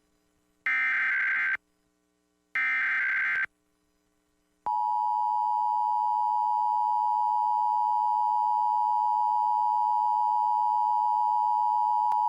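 Emergency Alert System SAME header: two bursts of harsh buzzing digital data tones, each about a second long and about a second apart. Then, a little under five seconds in, the EAS attention signal starts: a loud, steady two-tone alert tone that marks the start of a Required Monthly Test.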